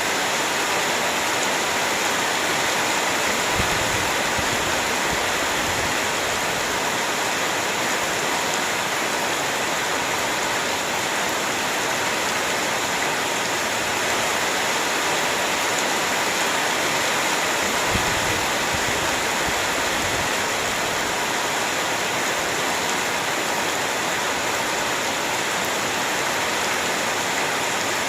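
Heavy rain falling steadily, a dense even hiss, with a few soft low thumps now and then.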